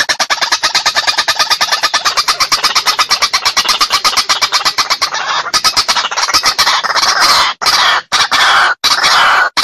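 White-breasted waterhen (ruak-ruak) calling: a fast run of harsh repeated notes, about eight a second, which about five seconds in gives way to longer harsh croaking calls with short gaps between them. It is the waterhen's challenge call, used as a lure to draw rival birds into a fight.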